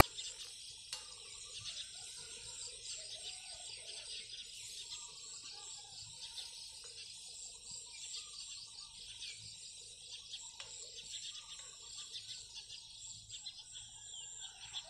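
Faint field ambience: insects chirring in a steady high buzz, with scattered distant bird calls.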